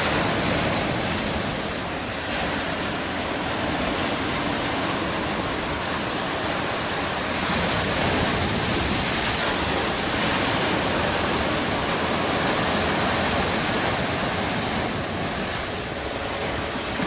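Sea surf breaking and washing over a rocky shore: a steady rush of waves and foam that swells and eases gently as the waves come in.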